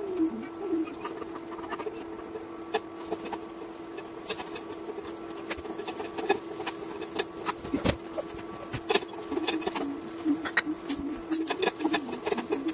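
Induction cooktop humming steadily while idli fries, with frequent clinks and taps of steel utensils and bowls on the counter and a heavier knock about eight seconds in. A low, wavering cooing sound runs underneath.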